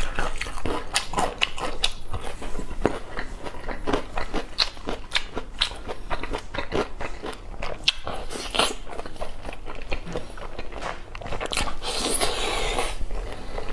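Close-miked chewing and biting: a dense, irregular run of wet clicks and crunches from food being eaten, with a longer, noisier stretch near the end.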